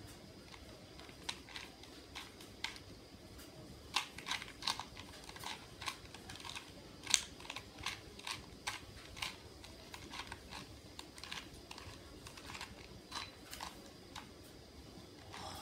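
Plastic Rubik's cube being turned by hand: irregular quick clicks of the layers snapping round. The clicks come thickest in the middle, then thin out.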